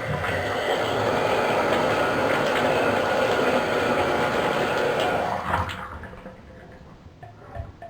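Bathtub faucet running water down the open tub drain to flush out gunk, a steady rush that is shut off about five and a half seconds in and fades away.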